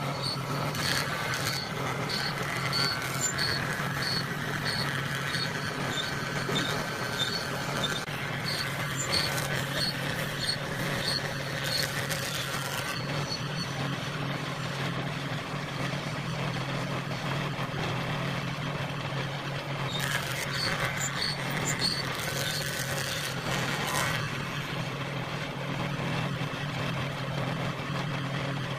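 A motor running steadily with a constant low hum, with a faint regular ticking about twice a second for long stretches.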